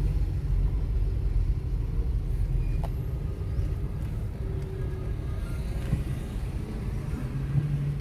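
A car's engine and tyres rumbling steadily as it drives slowly, heard from inside the cabin.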